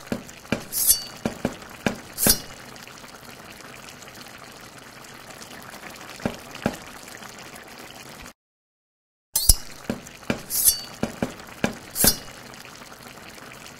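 Intro sound effects of glass-like clinks and sharp taps over a steady liquid hiss. The sound cuts out completely for about a second, then the same sequence of clinks over hiss starts again.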